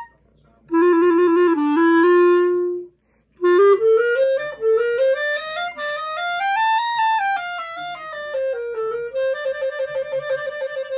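Solo clarinet playing a melody. It starts with a few low notes, pauses briefly, then plays a run that climbs note by note and falls back, ending in quick repeated notes.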